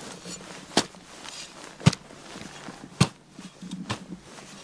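Folding spade chopping into the forest floor while digging a fire pit: three sharp strikes about a second apart, with faint scraping of soil and pine litter in between.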